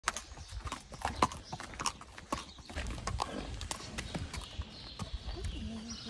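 A horse's hooves clip-clopping at a walk on a hard paved lane, a string of sharp, irregular clacks that thin out near the end.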